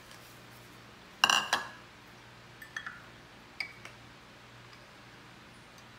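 Dishes and a steel measuring cup clinking on a kitchen counter: a loud clatter of a few quick ringing strikes a little over a second in, then a few light clinks.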